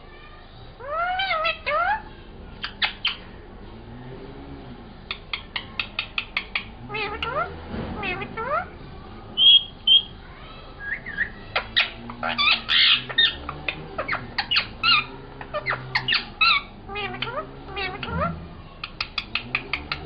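Rose-ringed parakeet calling and chattering: rising, meow-like calls that imitate a cat, short squawks, and fast runs of clicking chatter.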